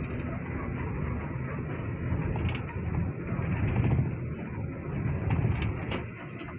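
Cabin noise inside a moving bus at highway speed: a steady low rumble of engine and tyres, with a few sharp rattling clicks around the middle and a slight easing near the end.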